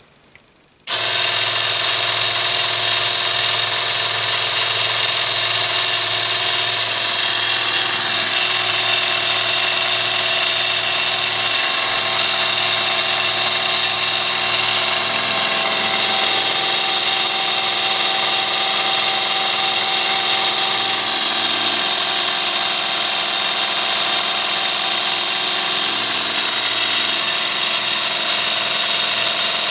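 Miniature abrasive belt sander's 12–24 V DC motor and belt switching on suddenly about a second in and running steadily, with a loud high-pitched hiss.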